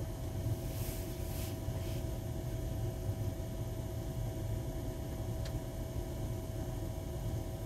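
Steady low rumble of a car idling, heard from inside the cabin, with a faint steady hum over it. A soft hiss comes about a second in, and a tiny click about five and a half seconds in.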